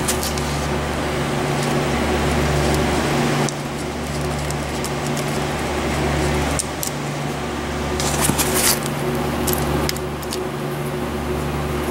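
Steady machine hum, like a fan running, with a low drone that swells and fades every second or two. A few light clicks and rattles come about eight to nine seconds in.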